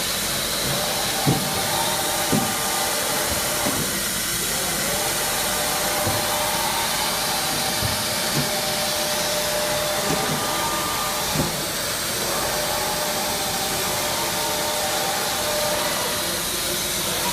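Soraluce TL 25 CNC bed-type milling machine running: a steady hiss with a motor whine that comes and goes in stretches of a few seconds, and a few light knocks.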